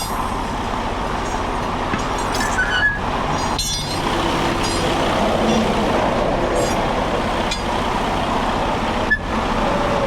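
Steady noise of heavy interstate traffic passing close by, with a few light knocks on top.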